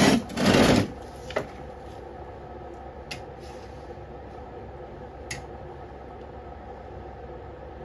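A snowblower being tipped up: a scraping clatter of the machine's housing lasting under a second, then a few light clicks over a steady background hum.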